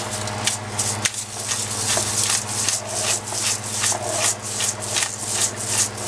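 Pepper mill being twisted by hand, grinding black pepper: a dry, rasping crunch repeating two or three times a second.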